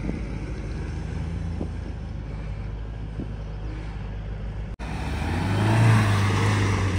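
Mahindra Thar 4x4 engine running steadily as the vehicle drives on sand. After a cut, it is closer and louder: the engine revs up to a peak and eases back over a rush of tyre and sand noise.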